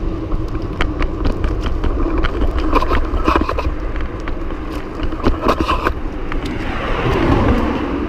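BMX bike rolling over paving stones, heard through a handlebar-mounted action camera: a steady low rumble with irregular clicks and rattles, and a broader rush of noise about seven seconds in.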